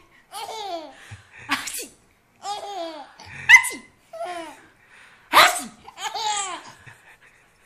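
Baby laughing in repeated bursts of high giggles that fall in pitch. Three sudden loud bursts stand out, about two seconds apart.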